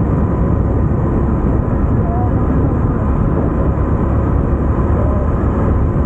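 KTM motorcycle cruising at a steady speed of about 50 km/h: a continuous heavy wind rumble over the microphone with the engine running underneath.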